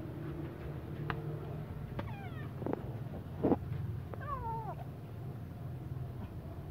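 A cat meowing twice: a short falling meow about two seconds in, then a longer wavering one about four seconds in. A few sharp knocks come between them, the loudest about three and a half seconds in, over a steady low hum.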